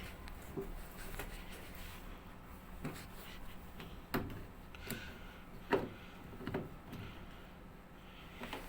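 Scattered plastic clicks and knocks from a Samsung front-load washing machine's drain pump filter cap being worked open by hand. No water runs out, since the drain is blocked.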